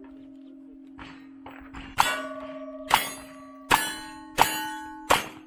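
Single-action revolver fired five times, starting about two seconds in and roughly one shot every three-quarters of a second. Each shot is followed by a ringing clang as the steel targets are hit, and the steel keeps ringing between shots.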